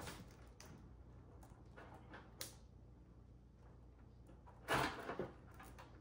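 Hand handling a white PCIe power extension cable and its plastic connectors: a few faint clicks and rustles, then a louder scraping rustle of cable and plastic about five seconds in.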